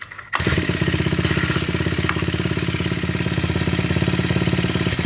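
Honda GX25 25 cc four-stroke OHC trimmer engine pull-started on its recoil cord. It catches about a third of a second in, the light pull helped by its automatic decompression, and then runs at a steady idle.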